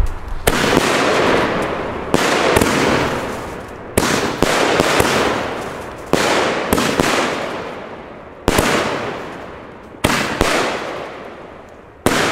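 Pyroland Bär Bock consumer firework battery firing shot after shot: a sharp bang about every two seconds, each followed by a rush of noise that fades away over a second or two.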